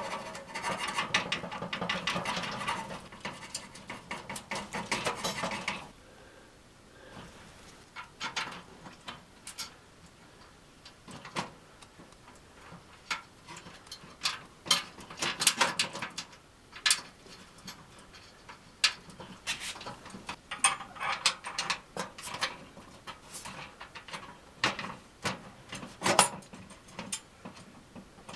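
Hand assembly of an aluminium fire table's metal parts. For the first six seconds or so there is a dense rattling and scraping as hardware is handled; after that come many separate sharp clicks and knocks of metal parts, screws and washers being set and fitted.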